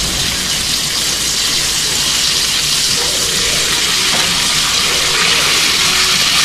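Cooked adobo chicken pieces sizzling in hot oil and toasted garlic in a sauté pan: a steady hiss.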